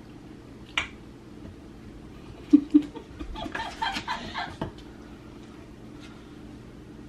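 A woman laughing hard: two short, loud low bursts about two and a half seconds in, then a second or so of high, cackling laughter.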